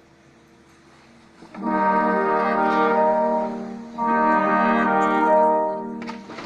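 Orchestral music: after a quiet lull, brass plays two long held chords, the first swelling in about a second and a half in and the second about four seconds in.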